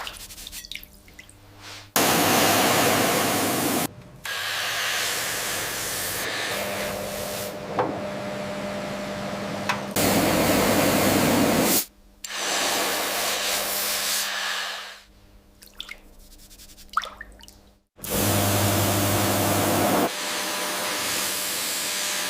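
Loud, steady rushing hiss in several stretches of a few seconds each, starting and stopping abruptly, with quieter gaps between them.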